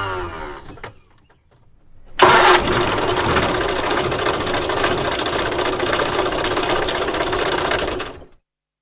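Bus engine start attempts. The end of one attempt winds down in falling pitch. After about a second of quiet, another attempt starts suddenly and churns steadily for about six seconds, then cuts off abruptly.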